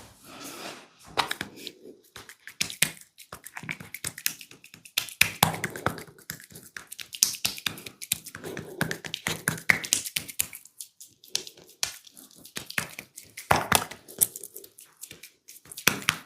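Hands of a barber's massage tapping and rubbing on skin and hair: a dense run of quick, irregular taps and crackles, with a few louder strikes near the end.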